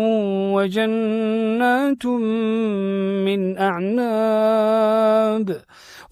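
A male Quran reciter chanting in melodic tajweed style, holding long drawn-out notes in two phrases, with a short intake of breath near the end.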